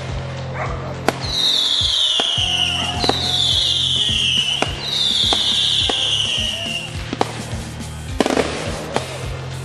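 Fireworks going off in sharp bangs and pops over electronic music with a steady bass. Three long, high falling whistles come one after another in the first half.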